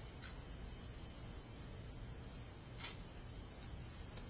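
Faint, steady night ambience of crickets chirping, with one soft click a little under three seconds in.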